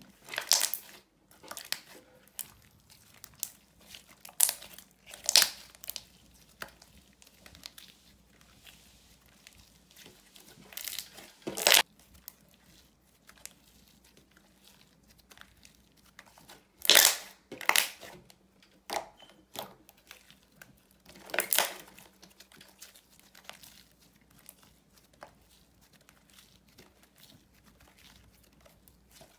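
Glossy slime being stretched, folded and pulled off a tabletop by hand, making short sticky bursts of sound every few seconds with quieter stretches between.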